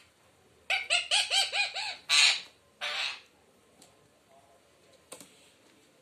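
Pet Indian ringneck parakeet giving a quick run of about seven shrill calls, then two harsher screeches. A single brief click comes about five seconds in.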